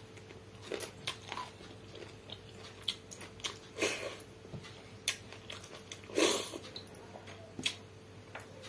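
Close-up eating sounds: chewing and small mouth clicks as pakhala (rice soaked in water) is eaten by hand, with two louder, longer sounds about four and six seconds in.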